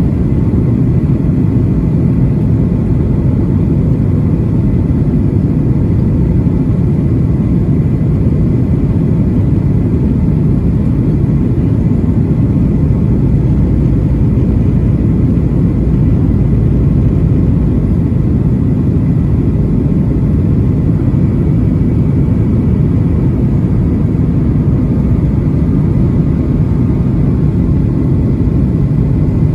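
Boeing 737-800 cabin noise in flight: a steady, deep rumble of the CFM56-7B engines and airflow, with no change through the stretch.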